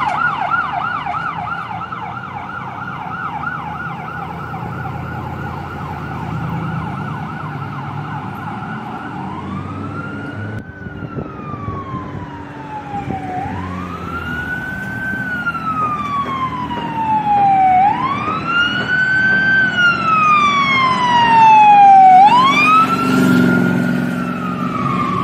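Ambulance siren on a Peru Fire Department ambulance responding. First a fast yelp that fades as the ambulance drives away. Then a slow wail, rising quickly and falling over a few seconds about every four seconds, growing louder as the ambulance comes up and passes, loudest near the end with its engine heard underneath.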